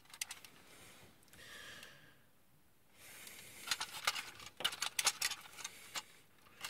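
Hard plastic parts of a transforming robot toy being handled. There is a soft rustle about a second in, a short quiet spell, then a run of irregular sharp clicks and taps.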